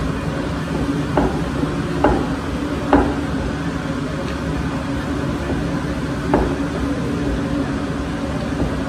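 Puri frying in hot oil in a steel kadai over a gas burner: a steady hiss with a faint hum. Four sharp knocks of the wooden rolling pin on the rolling board stand out, three in the first three seconds and one later.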